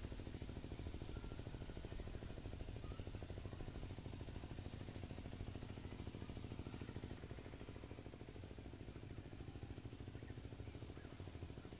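A steady low rumble from a running engine, pulsing evenly without change.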